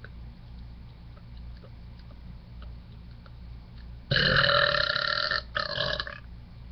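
A woman's long, loud, deliberate burp about four seconds in, holding a steady pitch for over a second. A shorter second burp follows straight after.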